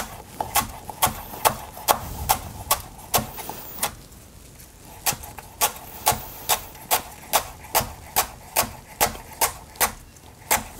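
Chef's knife chopping young garlic greens on a wooden cutting board: steady knocks of the blade striking the wood, about two to three a second, with a pause of about a second around four seconds in.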